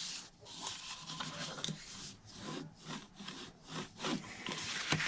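Cardstock being rubbed and creased along its score lines, a series of short, irregular scraping strokes of paper.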